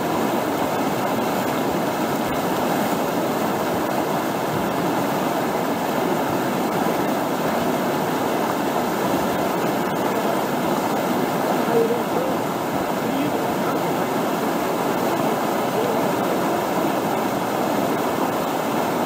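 Whitewater rushing steadily over a river ledge and standing wave, heard close from a kayak sitting in the water beside it.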